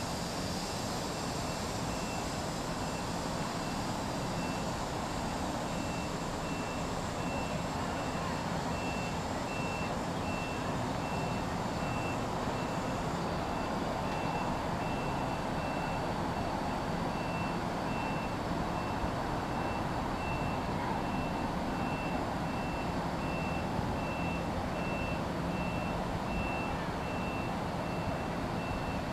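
NJ Transit commuter train of bi-level cars moving slowly through the station, a steady low hum and rumble. Over it a high electronic beep repeats at an even pace, about once a second.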